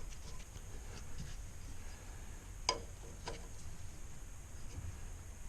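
Faint low background rumble with a few light clicks, the sharpest about two and a half seconds in and a softer one just after.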